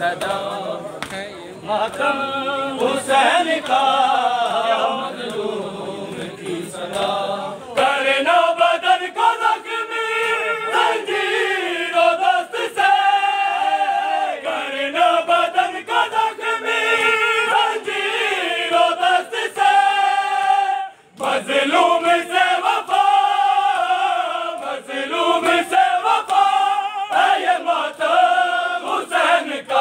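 A group of men chanting a noha, a Shia Muharram lament, in unison, with the sharp slaps of matam (chest-beating) among the voices. The chant breaks off for a moment about two-thirds of the way through.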